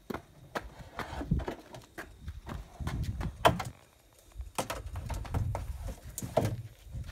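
Wooden pole knocking and scraping against a plastic trash can as a snake coiled on it is lowered inside: irregular clicks and knocks over low rumbling handling noise, the sharpest knocks about three and a half and six seconds in.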